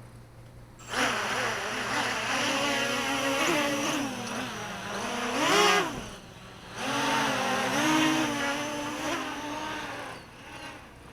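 A mini quadcopter's motors and propellers whine, the pitch rising and falling with the throttle. They spool up about a second in and climb sharply near the middle. They drop away briefly, then whine again and fade near the end.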